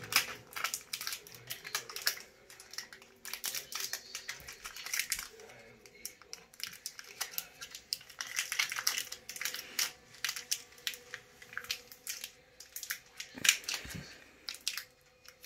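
Crinkling and rustling of plastic wrapping with scattered small clicks as a power cable is handled and unwrapped, with a sharper snap near the end.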